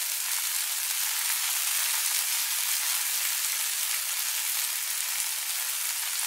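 Bean sprouts sizzling steadily in hot oil as they are stir-fried in a pan.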